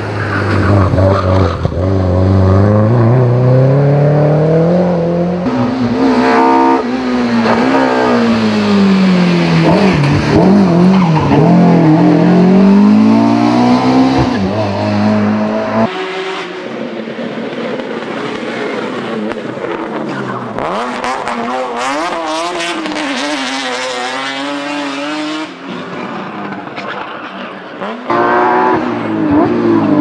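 Racing cars climbing a hill-climb road one after another, their engines revving up and dropping back at each gearshift as they pass. The sound cuts abruptly from one car to the next several times, and near the end a Porsche 911 racing car comes up loudly.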